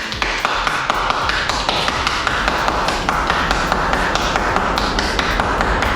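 Heavy hurricane rain with wind: a dense steady hiss full of sharp ticks from drops striking close to the microphone, over a low wind rumble.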